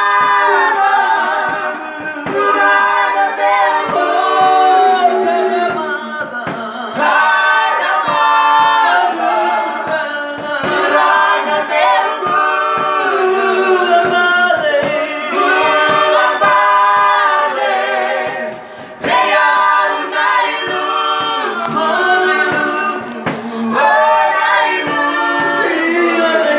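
A small worship team of men and women singing a Fijian worship song together into microphones, in phrases of a few seconds, with no instruments clearly heard.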